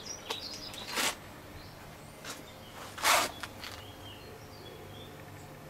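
Quiet outdoor background with faint high bird chirps in the second half. A few brief rustling noises sound over it, the loudest about three seconds in.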